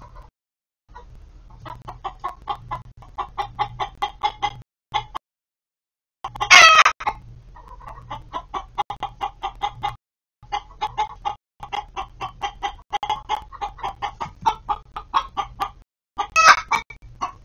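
A hen clucking in quick, even runs of about five or six clucks a second, broken twice by a much louder, drawn-out squawk.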